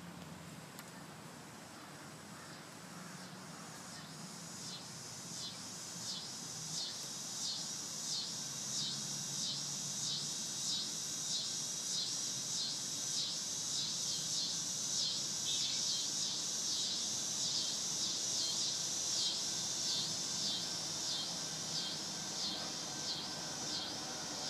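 Cicada song: a high, rhythmic pulsing buzz at about two pulses a second that swells in over the first few seconds and then holds steady. A faint low rumble sits beneath it early on.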